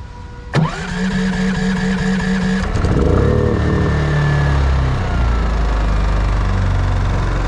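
The electric starter of a GENMAX GM14000i-HSB propane-fed dual-engine inverter generator cranks for about two seconds, then one engine fires, picks up speed and settles into steady running; the second engine does not start.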